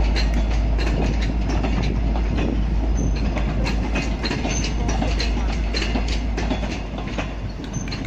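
Passenger train carriages rolling past over a steady low rumble, their wheels clicking and clacking over the rail joints. The sound eases off a little near the end.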